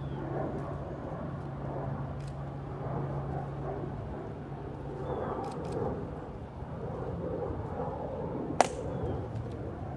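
Outdoor ambience: a low, diffuse murmur with a steady low hum that fades out about halfway, and a single sharp snap near the end.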